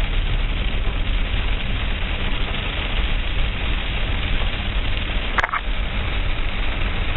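Steady loud rush of storm wind and rain with a low rumble underneath, and one brief sharp click about five seconds in.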